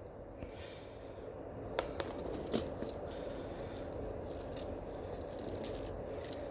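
Faint handling sounds of a silver handcuff bracelet and its chain: a few small metallic clicks and light rattles over a low steady background hum.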